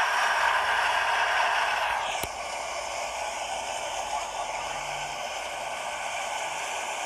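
Steady rushing road and wind noise of a moving vehicle, heard from inside. It drops in level about two seconds in, with a single click.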